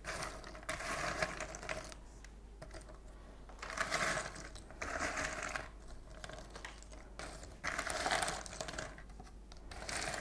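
Cardboard jigsaw puzzle pieces from a Magnolia puzzle rustling and clicking against one another as hands sift and spread them through a tray, in a few louder bursts.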